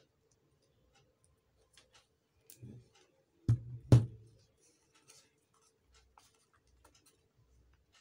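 Handling noises on a wooden tabletop: a few light clicks and taps, then two sharp knocks about half a second apart near the middle, as a small 12-volt battery and a cardboard remote are moved and set down.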